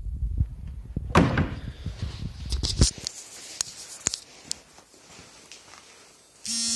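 Rumbling handling noise with several knocks and clicks, the loudest knock about a second in. A steady buzzing tone then starts abruptly just before the end.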